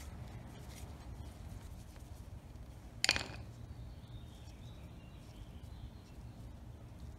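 Quiet handling of a small dirt-bike carburetor over a foil tray, with one short sharp clatter about three seconds in as a tool or part is set down.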